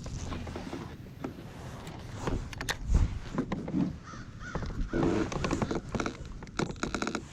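A crow cawing, in harsh calls near the middle, among light clicks and knocks of gear being handled.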